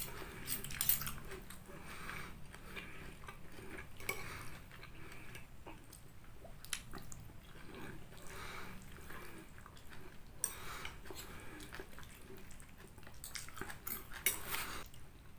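Close-up chewing of chicken noodles, with a metal spoon and fork clinking against a ceramic bowl now and then in sharp single clicks.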